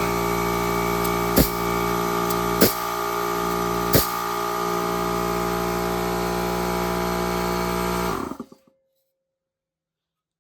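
Pneumatic air joggler running steadily as it steps a joggle into 0.8 mm sheet metal, with three sharp knocks a little over a second apart in the first four seconds. The sound cuts off abruptly about eight seconds in.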